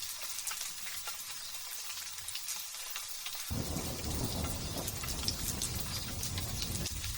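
Light drizzling rain, a steady patter of drops. About halfway through, a low rumble of thunder starts suddenly and lasts a few seconds.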